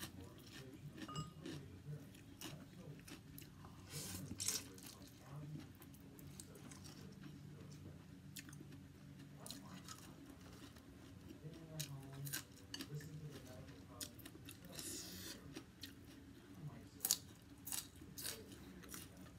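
Close-up chewing and crunching of a mouthful of rice vermicelli with fried tofu, bean sprouts and fresh greens, with many short crisp crackles throughout and a few louder crunches.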